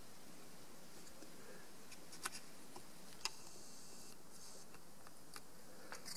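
Faint clicks and taps from a steel-tip dart being handled and shifted on a small balance stand. The two clearest clicks come about two and three seconds in, with a few lighter ones near the end, over a low steady hiss.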